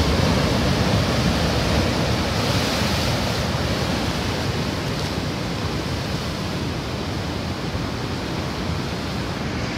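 Heavy storm surf breaking and churning over a rocky shore: a steady rush of white water that grows a little quieter toward the end.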